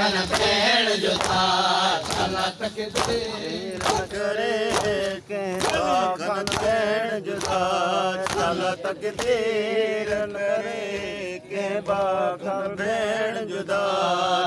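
A man singing a Muharram noha (lament) in long, wavering held notes, over a steady rhythm of mourners beating their chests (matam).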